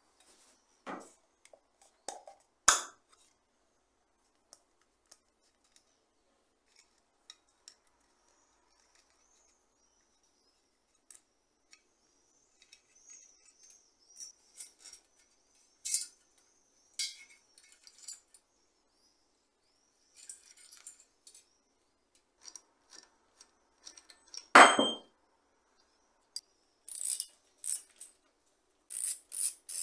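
Hand work on an old bicycle's metal parts: scattered small clicks, taps and clinks as the headlamp is taken apart, with a sharp clank a few seconds in and a louder ringing metal clang about 25 seconds in. Near the end comes a quick run of clicks as a wrench goes onto the rear axle nut.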